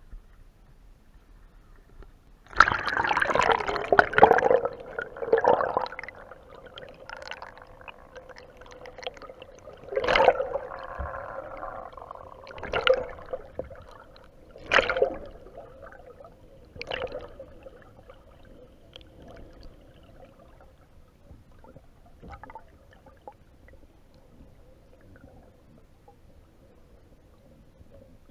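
A camera plunging into river water about two and a half seconds in, followed by muffled underwater gurgling and sloshing against the camera. A few louder surges of sloshing come every couple of seconds before the sound settles to a faint steady water noise.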